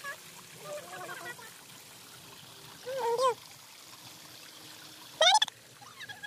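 Water trickling steadily over rock into a small pool, with short, high-pitched calls that bend in pitch cutting in about three seconds in and again, louder, about five seconds in.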